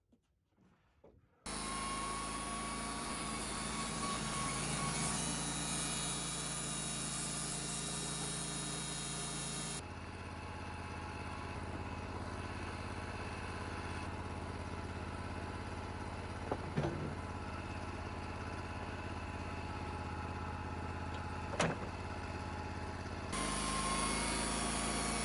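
An engine running steadily after starting abruptly, changing character suddenly twice, with a couple of sharp clicks in the middle stretch.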